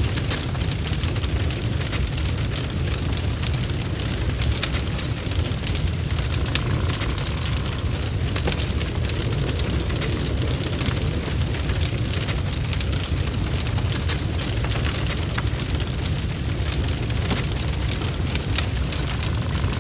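Bonfire burning with dense, irregular crackling and popping over a steady low roar of flames.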